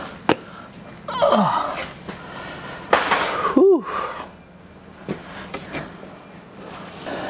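Light knocks, clicks and rustling as engine-bay parts are handled, with a short tone that rises and falls about halfway through.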